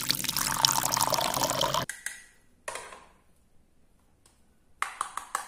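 Red liquid poured from a small plastic measuring jug into a toy plastic teacup, a steady pour that stops suddenly after about two seconds. Then a few light plastic taps and clicks, most of them bunched near the end.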